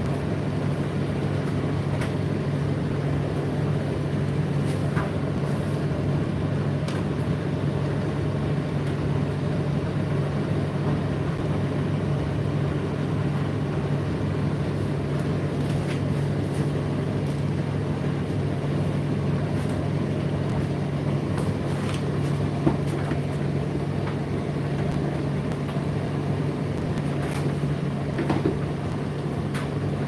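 Indesit IDC8T3 8 kg condenser tumble dryer running mid-cycle: a steady low hum of motor and fans with the drum turning, and a few faint clicks and light knocks from inside.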